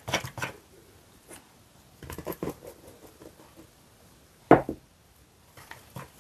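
Wire whisk stirring batter and flour in a plastic bowl, heard as short spells of light clicking and scraping, with one sharp knock about four and a half seconds in.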